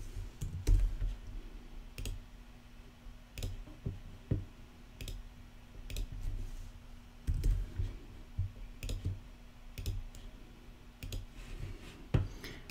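Computer mouse clicks and a few keyboard keystrokes, scattered and irregular, over a faint steady hum.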